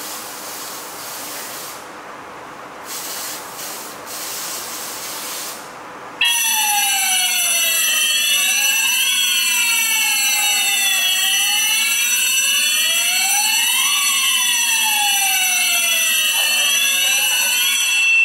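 An aerosol smoke-tester can hisses in short sprays into an explosion-proof smoke detector. About six seconds in, the detector trips the conventional fire alarm panel and the alarm sounders go off loudly: several sirens sweep up and down out of step over a steady high tone. The alarm cuts off suddenly at the end.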